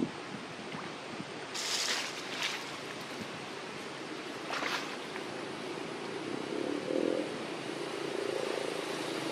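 A few short splashes of water as a young monkey swims, over a steady rushing background noise; a steady low drone comes in during the second half.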